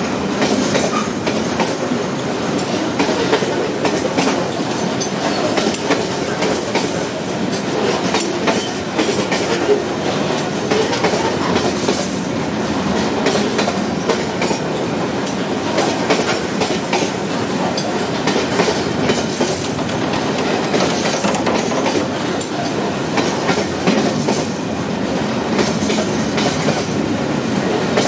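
Freight train wagons rolling past, their wheels clattering steadily over the rail joints in a continuous stream of clicks.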